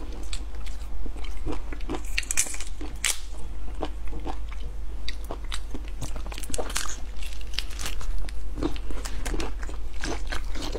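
Close-up chewing and biting of raw shellfish, with wet mouth sounds. Many short, irregular clicks and crackles come from the flesh and shell being pulled apart and eaten.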